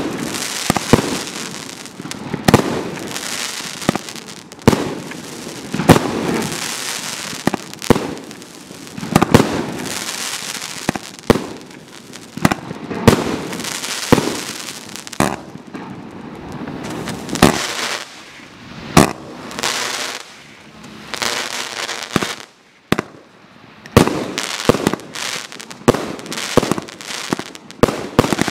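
A CE Toxicado 84-shot 1.3G firework barrage cake firing: sharp shots and bursts every second or two, with crackling hiss between them. There is a short lull about three-quarters through, then a quicker run of shots near the end.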